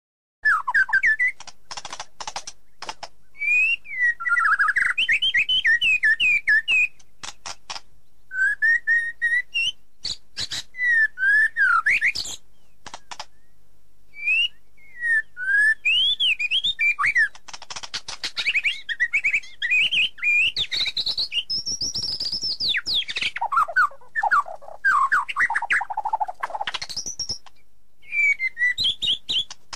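A bird singing: a run of rapid chirps, whistled up-and-down slides and trills with short pauses, starting about half a second in.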